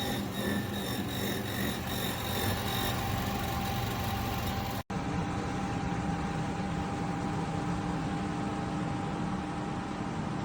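KGOGO portable air conditioner running: a steady fan and compressor hum with a faint steady whine. About halfway through it cuts out for an instant and comes straight back.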